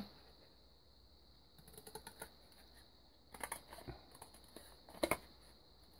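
Scissors snipping through thin box cardboard in three short bursts of quick clicky cuts, about two, three and a half and five seconds in. A faint steady high whine runs underneath.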